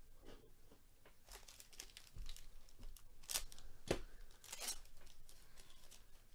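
Foil wrapper of a Panini Absolute Football trading-card pack being torn open and crinkled by hand: a run of crackly rips and rustles, loudest between about three and five seconds in.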